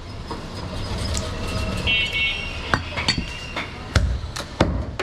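Butcher's cleaver chopping goat meat and bone: a few sharp, separate strikes, the loudest about four seconds in, over steady background noise.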